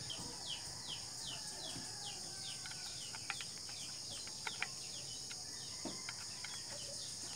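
Steady high-pitched insect drone with a bird repeating short, falling chirps about two and a half times a second. A few sharp light clicks come about three and four and a half seconds in as the speargun's parts are handled.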